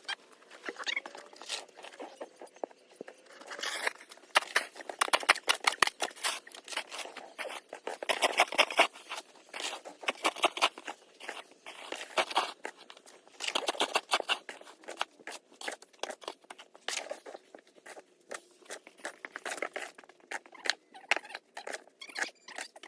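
Snow shovel scraping and crunching through snow in quick, irregular runs of strokes.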